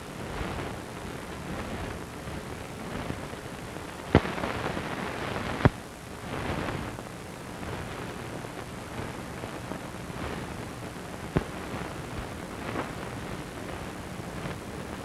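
Crackling hiss of a worn film soundtrack with no dialogue on it, broken by a few sharp pops: two about four and five and a half seconds in, and one about eleven seconds in.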